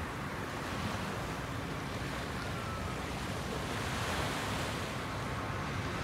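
Pacific Ocean surf: small waves breaking and washing close to shore, a steady rush of water that swells a little about four seconds in.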